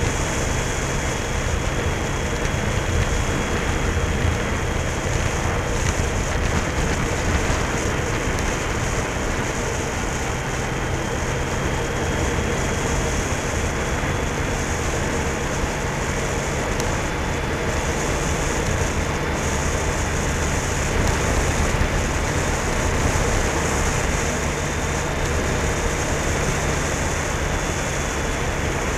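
Motorcycle riding at steady road speed: wind rushing over the action camera's microphone, with the engine's low drone underneath and a faint steady high whine.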